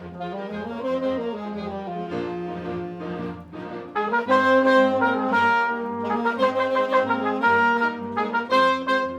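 An instrumental ensemble with prominent brass playing sustained chords, stepping up to a louder, fuller passage about four seconds in.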